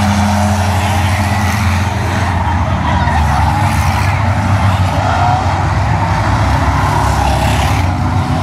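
A pack of stock cars racing around a short oval track, their engines running loud and steady together.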